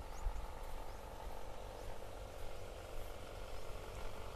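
Quiet outdoor ambience: a steady background drone, a low rumble on the microphone, and a few faint high chirps.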